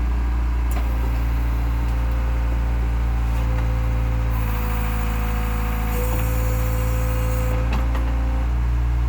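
Backhoe's diesel engine running steadily with a steady higher whine over it that rises slightly around the middle, as the machine works at tearing apart a camper; a couple of sharp knocks, about a second in and near the end.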